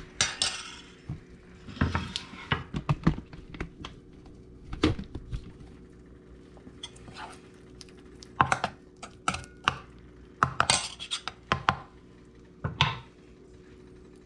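Hand working fish fillets through batter in a stainless steel mixing bowl: irregular clinks and knocks against the metal bowl, coming in quick clusters with short pauses between.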